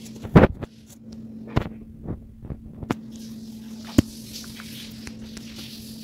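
A steady low hum with a few scattered knocks and taps over it: a loud thump about half a second in, softer knocks around one and a half, two and three seconds, and a sharp click about four seconds in.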